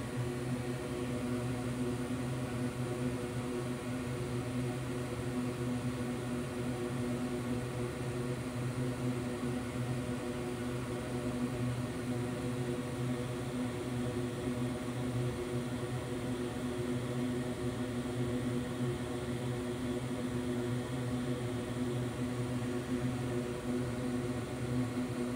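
A steady whir of a small electric fan or blower motor, a low, even hum that does not change.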